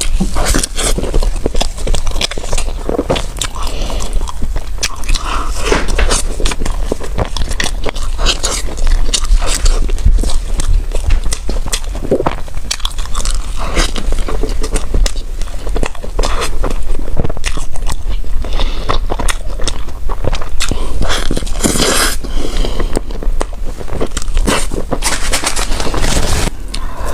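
Close-miked biting and chewing of food: many irregular crunchy bites and mouth clicks.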